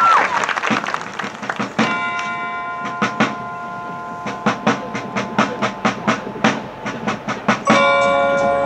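Marching band front ensemble playing a soft mallet-percussion passage: quick, evenly spaced mallet strikes with ringing bell-like chords about two seconds in and again near the end. At the very start a held band note cuts off with a short downward slide as applause dies away.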